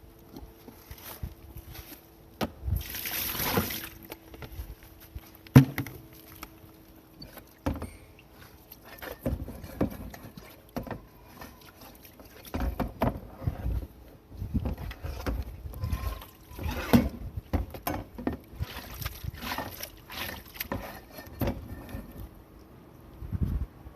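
Water splashing and sloshing as a perforated range-hood filter is washed and rinsed, with irregular knocks of the filter against the basin. There is a short spray of water about three seconds in and a sharp knock a couple of seconds later, over a faint steady hum.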